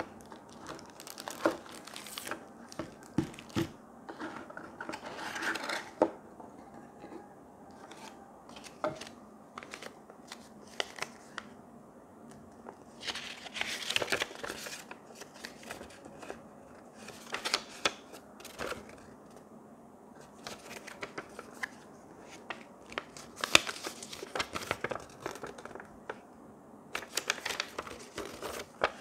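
Hands unpacking a small cardboard box: cardboard flaps, plastic wrapping and paper booklets rustle and crinkle in irregular bursts, with small clicks and taps as pieces are lifted out and set down.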